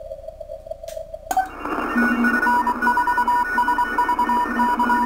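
Kenwood R-1000 shortwave receiver audio through a Timewave DSP-9+ audio filter. First a single narrow tone comes through the 100 Hz filter setting. After about a second there is a click, and the filter opens up into band hiss with several Morse code (CW) signals keying at once at different pitches.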